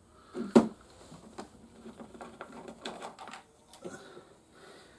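A sharp knock about half a second in, then light clicks and rustling as toy pieces and packaging are handled and set down.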